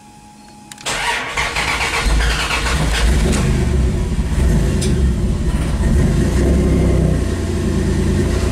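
Dodge Dakota's 3.9-litre Magnum V6, on a Megasquirt standalone ECU, starting: the starter cranks about a second in, the engine catches within a second or so and then runs unevenly at idle. The rough running is not very smooth, which the owner puts partly down to the warm-up enrichment.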